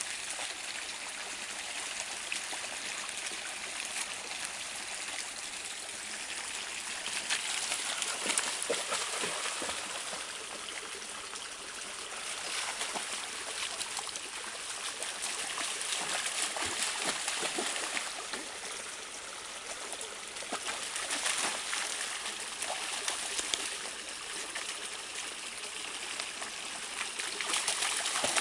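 Shallow stream trickling steadily over rock, with a German Shepherd's paws splashing through the water in several short bursts.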